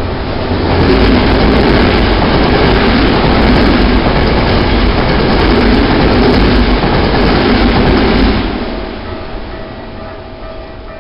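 A Keikyu train passing the level crossing close by: a loud, dense rumble of wheels on rail from about a second in until about eight seconds, then fading away. The crossing's warning bell keeps ringing under it and is heard again as the train fades.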